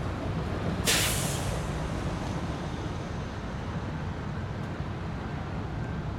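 A heavy vehicle's air brakes let out one sharp hiss about a second in, fading within half a second, over the steady low rumble of road traffic.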